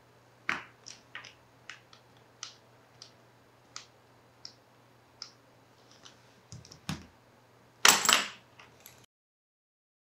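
Clicks from the built-in TSA combination lock of a Briggs & Riley Sympatico suitcase. First a sharp click as the small reset pin is pushed down with a pen, then a run of light clicks as the three number dials are turned to set a new combination. About eight seconds in comes a louder, short scraping rasp of the zipper pulls being slid along the zipper, and then the sound cuts off.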